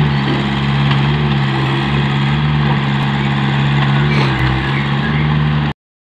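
Komatsu PC58UU mini excavator's diesel engine running steadily under work as the arm and bucket move, with a few faint clicks. The sound cuts off abruptly near the end.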